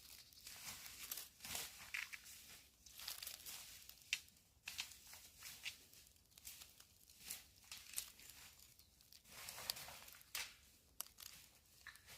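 Faint, irregular rustling and crinkling with scattered small clicks.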